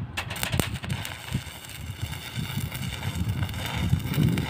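Stick-welding arc crackling and sizzling steadily while an anchor bolt is tacked to a rebar cage, with wind buffeting the microphone.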